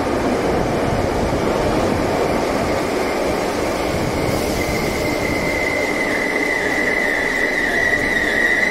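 Merseyrail electric train running on the track with a continuous rumble, and a steady high-pitched wheel squeal that sets in about halfway through and grows louder toward the end.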